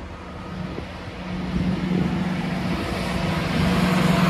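GWR Networker Turbo diesel multiple unit approaching and passing close by, its diesel engine running with a steady note. The sound grows louder from about a second in, with the rush of the train building near the end.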